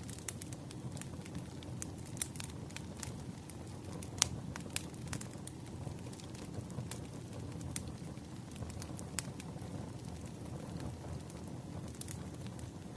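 Burning firewood crackling: a steady low noise of the fire with scattered sharp pops and snaps, the loudest about four seconds in.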